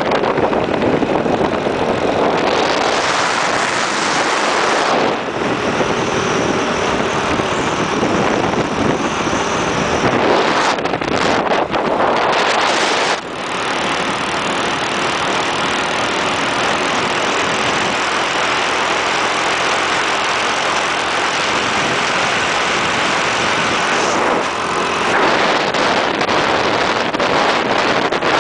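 Motorbike engine running steadily on the move, under heavy wind noise on the microphone. The wind noise swells twice, a few seconds in and again around the middle.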